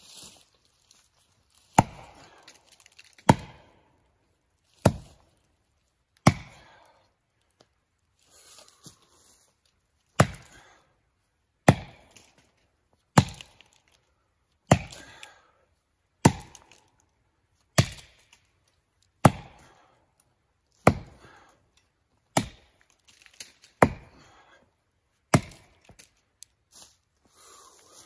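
Axe chopping into wood: sharp, evenly paced chops, about one every second and a half, some fifteen in all with a short break after the fourth. The axe is a 4-pound head on a 36-inch handle.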